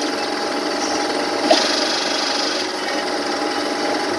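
LA155F30 CNC lathe running, its tool cutting an L63 brass bushing, with the steady whine of the spindle drive and a sharp tick about a second and a half in.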